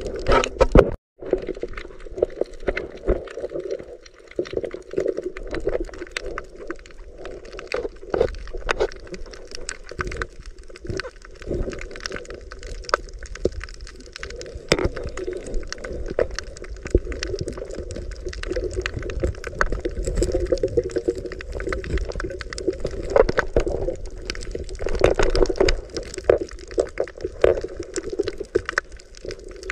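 Muffled underwater sound picked up by a submerged camera: water sloshing and gurgling, with scattered sharp clicks and crackles. There is a brief dropout just after a second in.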